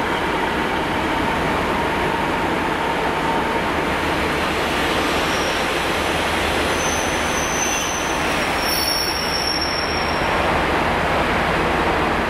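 Class 150 Sprinter and Class 143 Pacer diesel multiple units, coupled together, running along the platform and pulling away: steady engine and wheel-on-rail noise, with a few brief high wheel squeals in the middle.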